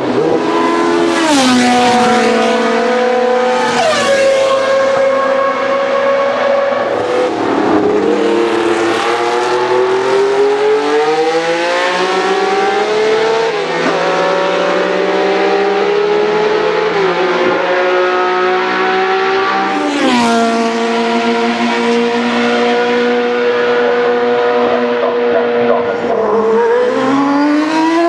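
Historic Formula 1 race car engines revving very high. Several times the pitch drops in quick steps as the cars downshift under braking, then climbs steadily as they accelerate out through the gears.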